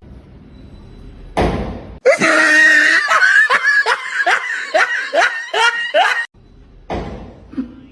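Laughter: a run of about eight 'ha' syllables, each falling in pitch, lasting about four seconds. It is preceded by a short swish and followed by a brief knock.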